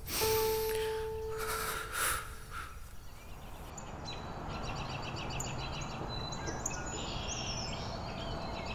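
A held tone with a few short breathy sounds, then, from about four seconds in, outdoor ambience with small birds chirping in quick, repeated trills.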